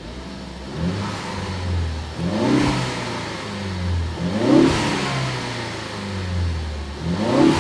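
2013 Ford Focus ST's turbocharged 2.0-litre four-cylinder idling, blipped about three times, each rev rising and falling back to idle. It sounds healthy.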